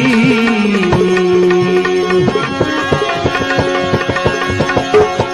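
Instrumental interlude of a Gujarati bhajan: tabla strokes under held melody notes, the drumming growing busier about two seconds in.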